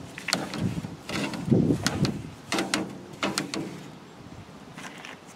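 Metal tongs clacking and scraping against a charcoal grill's steel grate while an oiled paper towel is wiped along the bars, in irregular sharp clicks.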